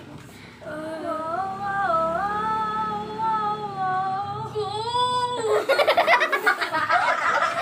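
A woman sings one long drawn-out vowel, stepping in pitch a few times and gliding up just before it ends, about two thirds of the way through. Then the group bursts into laughter.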